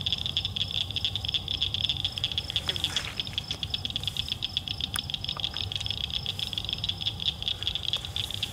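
Chorus of night insects trilling steadily with very rapid, even pulses, over a low rumble.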